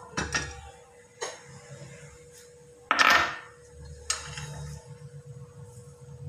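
Steel cleaver knocking and scraping on a wooden chopping block as chopped spring onions are gathered up on the blade, with a few sharp knocks and one loud scrape about three seconds in. A faint steady hum runs underneath.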